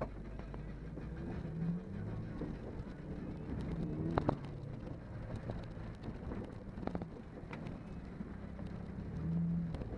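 Engine of an off-road vehicle running as it drives over rough, wet quarry ground, its pitch rising and falling with the throttle, heard from inside the cabin with interior rattles. Sharp knocks from the body about four seconds in and again about seven seconds in, as the vehicle jolts over bumps.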